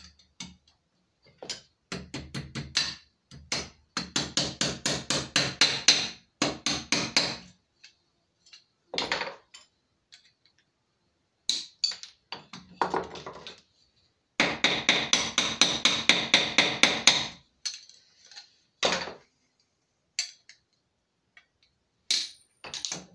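Small hammer striking iron in quick runs of taps, several a second, with short pauses between runs, setting the small iron nails that hold the hinges on a hand-made iron lock plate. The longest run of taps comes around the middle.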